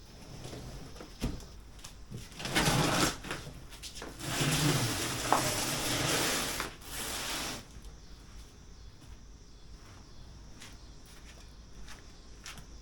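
Handling noises: a few knocks and clicks, with two longer stretches of rustling or scraping, the second lasting about three seconds.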